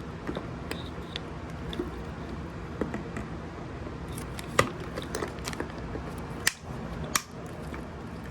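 Scattered sharp snips and clicks of a hand cutting tool cutting off a part so that the new tail light will fit, the loudest about four and a half and seven seconds in, over a steady low hum.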